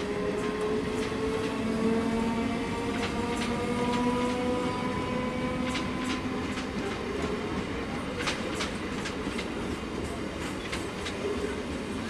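Eastern Railway electric multiple unit (EMU) suburban train running past, its coaches rumbling and the wheels clacking in pairs over rail joints. A hum under it rises slightly in pitch.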